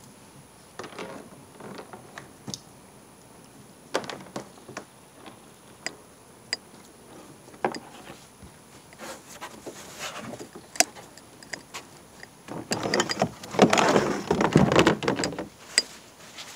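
Scattered clicks and knocks from gear being handled aboard a kayak, with a louder spell of rattling and scraping about three seconds before the end. No motor is heard running.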